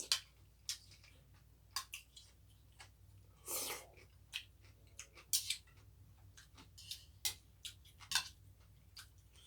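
Close-up eating sounds: scattered wet clicks and smacks of a person chewing, with a longer breathy intake of air about three and a half seconds in.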